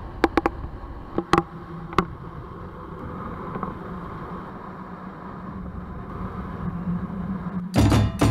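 Motorcycle engine running with wind rushing past while riding, a steady low hum with a few sharp clicks in the first two seconds. Loud percussive music cuts in suddenly near the end.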